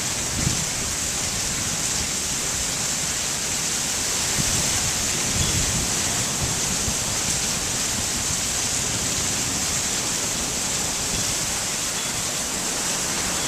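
Heavy monsoon rain pouring down in a steady hiss, with wind buffeting the microphone in an uneven low rumble.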